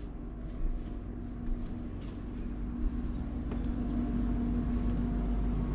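Low rumble of a jet airliner passing overhead, growing gradually louder, with a steady hum through it.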